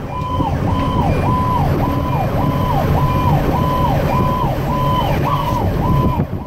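Fire apparatus electronic siren cycling quickly up and down, about two sweeps a second, heard from inside the cab of a 2010 Pierce Arrow XT fire engine. The truck's engine runs as a steady low rumble underneath.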